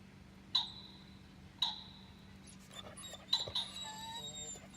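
Two short, sharp sounds about a second apart, then a dog whining in high whimpers whose pitch bends, through the second half.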